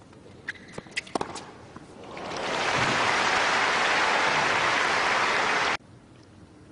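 Tennis stadium crowd applauding: a few sharp knocks, then applause that swells in about two seconds in, holds steady and cuts off abruptly near the end.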